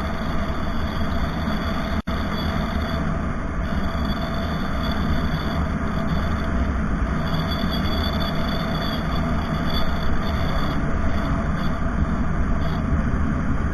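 Steady rumble of a vehicle travelling along a road, engine and road noise running evenly, with a split-second dropout about two seconds in.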